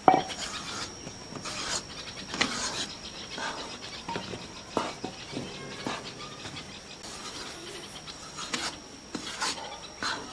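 A metal spatula scraping and stirring through wheat flour as it roasts in ghee in a karahi, in irregular strokes about a second apart.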